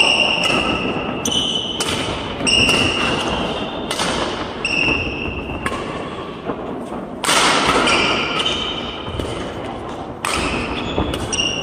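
Badminton doubles rally on a wooden court: rackets striking the shuttlecock in sharp hits at uneven intervals, each fading away, with short high squeaks of sports shoes on the floor in between.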